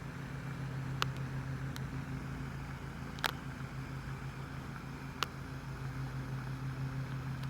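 A steady low mechanical hum, with a few faint sharp clicks scattered through it.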